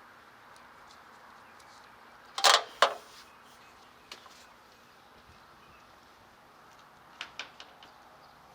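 Hand tools and bolts clinking against metal while the intake manifold bolts are removed: two sharp clinks about two and a half seconds in, then a few lighter clicks near the end.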